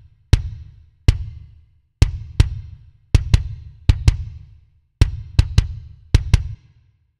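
Recorded kick drum playing on its own, about fifteen hits in an uneven pattern, some in quick pairs, each a sharp click over a deep thud that dies away quickly. It runs through a 1176-style compressor set to a fast release, which makes the kick hits sound more even.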